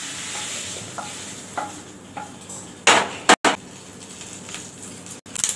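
Fried paneer being scraped out of a hot oiled kadai into a steel pot with a wooden spatula: the oil's sizzle fades and there are a few light knocks of wood on metal. About three seconds in come two louder clanks of cookware.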